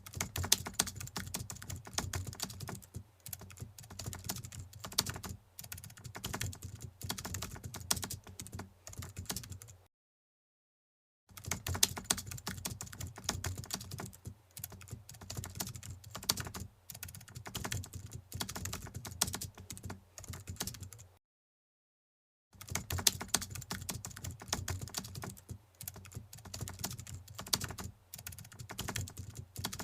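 Rapid keyboard typing, a dense run of irregular key clicks. It cuts to dead silence twice for about a second and a half.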